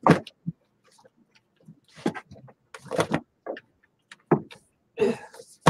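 Handling noise from art supplies being moved about: a string of about eight short rustles, scrapes and knocks with gaps between them.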